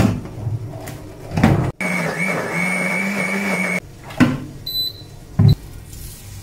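Midea countertop blender running steadily for about two seconds, mixing banana pancake batter, with a hum and a faint high whine, then stopping abruptly. A couple of sharp knocks follow.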